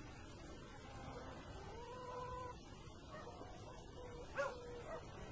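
Faint dog whining: a drawn-out, level whine about two seconds in, and another near the end with a short, sharper yelp in it.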